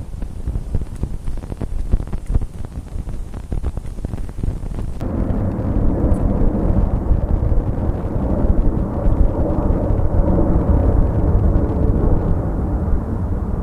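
Wind buffeting the camera microphone: a loud low rumble with gusty thumps, turning into a denser, steadier rumble about five seconds in.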